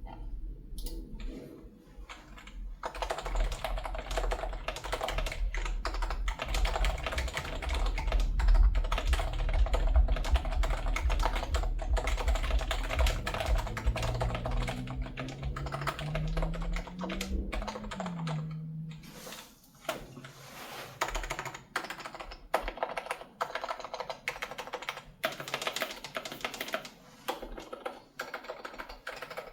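Typing on a Topre HHKB Hybrid keyboard, unsilenced, with Deskeys sliders and poron, 45g domes and DCS keycaps over o-rings. After a short pause it starts about three seconds in with fast continuous keystrokes, breaking into shorter bursts with gaps in the second half. A low rumble lies under the first two-thirds.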